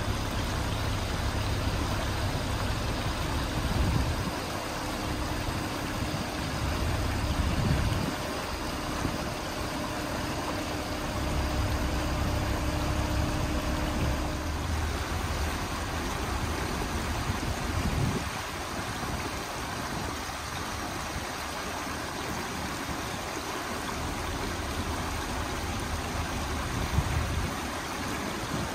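Mobile crane's diesel engine running under load as it swings a steel truss bridge, its low rumble rising and falling, with a steady hum that stops about halfway. A shallow rocky creek rushes steadily underneath.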